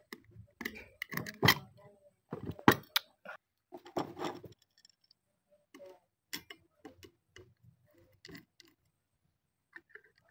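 Thin sheet-metal discs being handled and a hand screwdriver turning small screws into one of them: irregular metallic clicks, ticks and scrapes, busiest in the first few seconds and sparser after.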